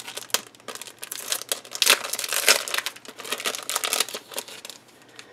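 Clear plastic packaging sleeve crinkling in the hands as a card of tassel bows is worked out of it. The rustles come in an irregular flurry, busiest about two seconds in, and die down near the end.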